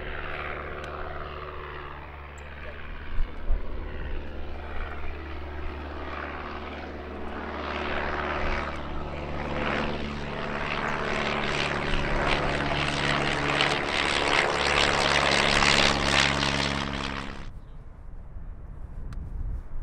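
Piston-engined propeller aircraft running, growing steadily louder over about ten seconds, then cutting off suddenly near the end. Two brief thumps come about three seconds in.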